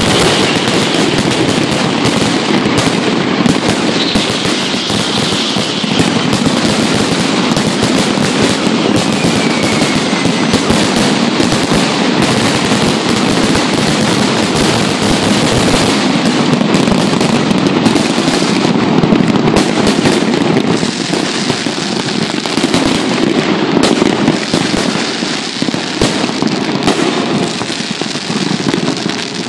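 Fireworks display: a dense, unbroken barrage of bangs and crackling from many shells bursting close by at once.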